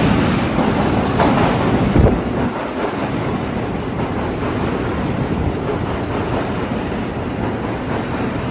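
New York City subway train running on the track, its wheels clacking over the rail joints, with a sharp knock about two seconds in and a steady rumble that eases slightly afterwards.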